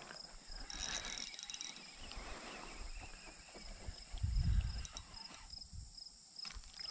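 Insects chirping in a steady, evenly pulsing high trill, with a low bump about four and a half seconds in.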